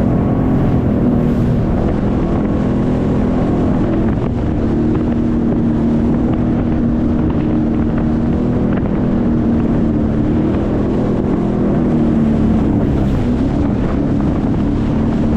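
Sea-Doo jet ski engine running steadily under way, its pitch shifting briefly about four seconds in and dipping and recovering near the end, with wind buffeting the microphone.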